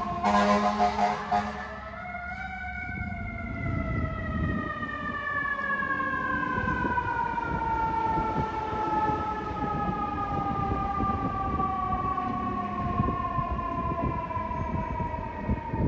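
Fire engine siren, rising briefly about two seconds in and then sliding slowly down in pitch, over low engine and street rumble.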